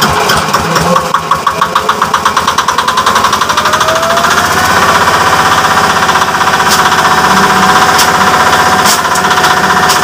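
Single-cylinder diesel engine chugging as it drives a flour mill. The mill's rotor spins up with a rising whine about three to five seconds in and then runs steady. Later come a few sharp cracks as chopped corn cob pieces are fed in and broken up.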